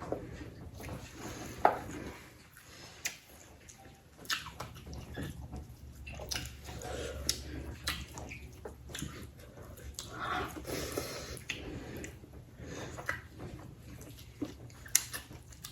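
Close-up eating sounds: chewing and mouth smacks with scattered sharp clicks at irregular moments, over a low steady hum.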